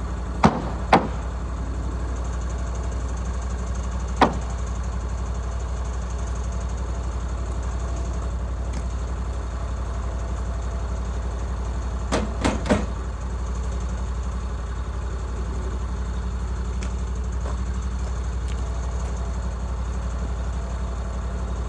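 Portable sawmill's engine idling steadily, with no rise or fall in load. Sharp knocks sound over it: two close together near the start, one about four seconds in, and three in quick succession about twelve seconds in.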